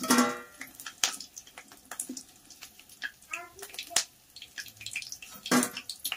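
A metal spoon clinks and scrapes in a kadhai as fried besan bhajiya are lifted out of hot oil. Irregular sharp ticks and pops come from the crackling frying oil.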